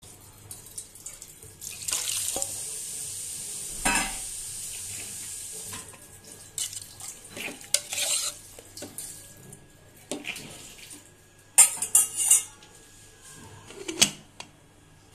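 Water poured into an aluminium pressure cooker holding marinated mutton, then a spoon stirring and scraping against the metal pot. Near the end come sharp metal clanks as the cooker's lid is set on and closed.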